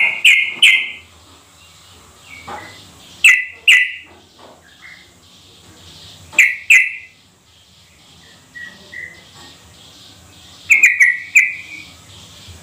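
Yellow-vented bulbul (trucukan) calling: short groups of two or three loud, clipped notes about every three seconds, with a few softer notes between.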